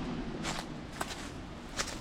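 Footsteps, about three steps in two seconds, over a steady background hiss.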